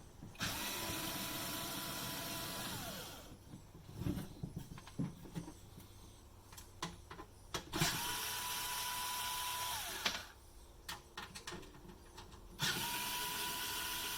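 Electric drill-driver running in three bursts of about two to three seconds each, its pitch dropping as the motor winds down after each burst, with small clicks and knocks of handling between them.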